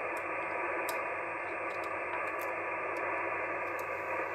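Steady hiss of band noise from an Icom IC-756PRO HF transceiver receiving on the 75-metre band, an open channel with no station talking. The hiss is held to the narrow band of a voice-radio channel.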